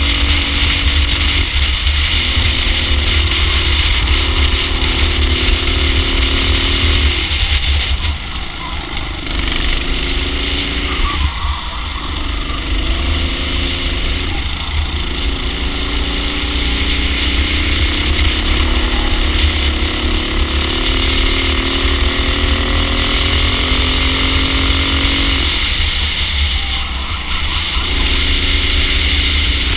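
Racing kart engine heard from on board, revving up through each stretch and dropping off sharply when the driver lifts for corners, several times over.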